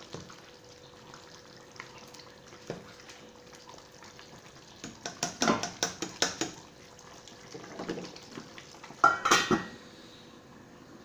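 A ladle knocks and scrapes against a stainless steel pot as it stirs simmering kabsa rice, about halfway in. Near the end the steel lid clanks down onto the pot, the loudest sound. A faint steady hum runs underneath.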